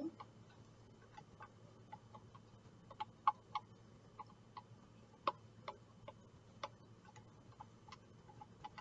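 Faint, irregular clicks and taps of a silicone spatula scraping melted butter out of a plastic bag into a glass measuring cup, over a low steady hum.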